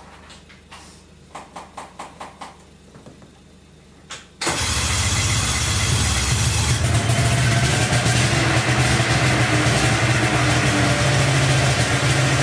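A roughly 20-year-old Ski-Doo snowmobile engine being cranked, a quick run of even chuffs about five a second. It catches suddenly about four and a half seconds in and keeps running loud and steady.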